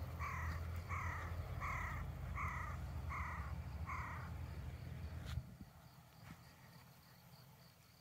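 A crow cawing in a steady series, about six caws roughly three-quarters of a second apart, each dropping slightly in pitch; the calls stop a little after four seconds in. Under them is a low rumble that falls away suddenly about five seconds in.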